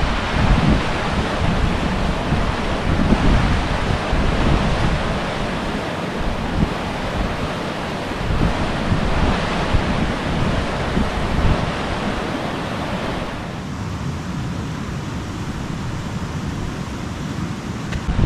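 Waterfall rushing steadily, with wind buffeting the microphone in uneven gusts; the rush eases slightly about three-quarters of the way through.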